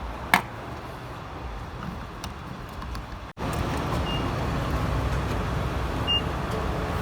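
Gas-station ambience while refuelling: a sharp click about a third of a second in, then an abrupt cut to a louder, steady low rumble of traffic and machinery, with two short high beeps.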